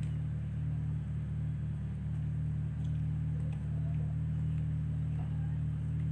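A steady low hum with a few faint soft ticks above it.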